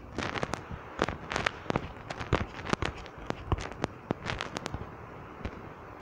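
Irregular sharp pops and crackles, a few a second, over a low background hiss.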